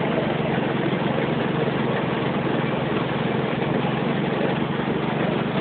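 Heavy rain pouring down on a car, a steady dense hiss, with the car's engine running underneath.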